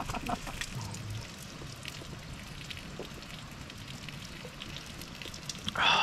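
Light rain pattering on a tarp overhead, a scatter of small irregular drips. Just before the end a short, louder sound with a clear pitch cuts in.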